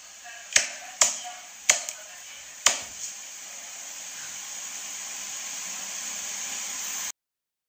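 Four sharp taps in the first three seconds over a steady hiss that slowly grows louder and then cuts off suddenly.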